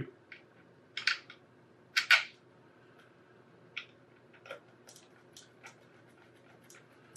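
Small precision screwdriver driving a screw into the plastic housing of a Datalogic Gryphon barcode scanner: a scattering of short clicks and scrapes, the loudest pair about two seconds in, then fainter ticks.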